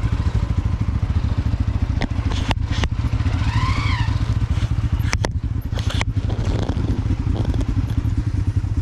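Motorcycle engine running at steady low revs, with a few sharp knocks and rattles from the bike over rough ground. A short rising-then-falling tonal call sounds about four seconds in.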